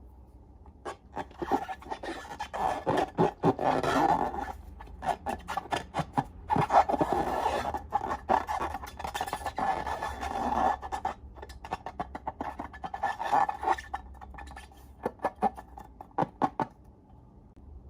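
Slime being stirred and worked: runs of sticky clicks, crackles and scraping, coming in several spells with short pauses between.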